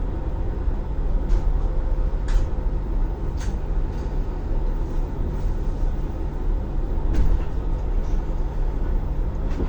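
Train noise: a steady low rumble and hum, broken by five sharp clicks or knocks spread unevenly through it.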